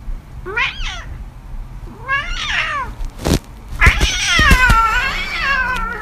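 Domestic cat meowing: two short meows that rise and fall, then a long, wavering meow starting about four seconds in, the loudest of the three. A sharp click comes just before the long meow.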